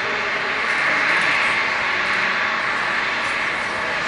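Boeing 777 freighter's twin GE90 turbofan engines running at taxi power: a steady jet whine and rush, strongest in the upper-middle pitches.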